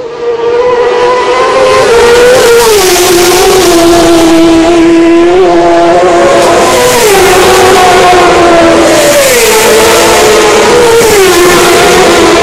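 Racing motorcycles passing at full throttle, very loud, the engine note dropping in pitch a few times as bikes go by.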